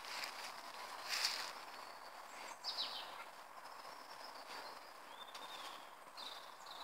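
Small birds chirping in woodland, with a few short scratching bursts from a Deerhound pup digging in soil and leaf litter, the strongest about a second in.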